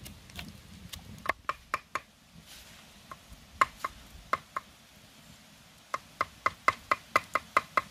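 Knife chopping food on a cutting board: sharp strokes in short uneven groups, then a quick run of about five strokes a second near the end.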